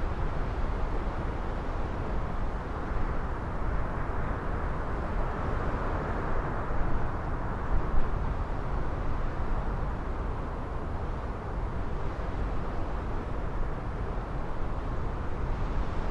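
Strong gusty wind rumbling on the microphone, with a broad rushing noise that swells and fades in the middle and a brief louder buffet about halfway through.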